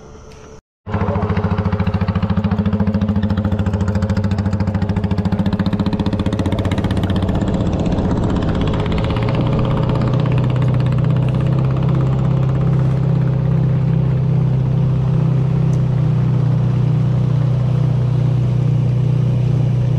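Outboard motor on a small aluminium boat running steadily at speed while the boat is underway. It starts abruptly about a second in, and its engine note shifts about nine seconds in.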